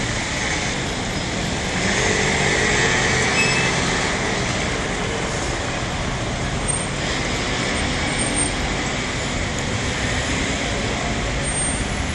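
City road traffic passing close by: cars and motor scooters running past in a steady wash of engine and tyre noise, swelling a little about two to four seconds in.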